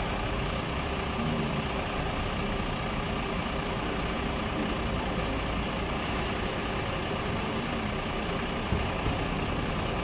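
Steady low rumble of heavy engines idling amid city traffic noise.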